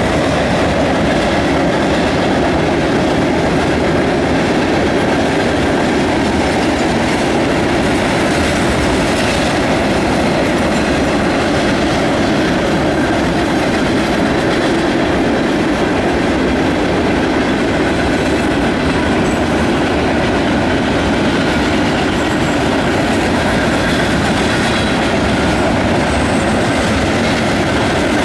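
Freight cars of a long CSX train, tank cars and hoppers, rolling past across a concrete overpass. The wheels on the rails make a steady, loud running noise that does not let up.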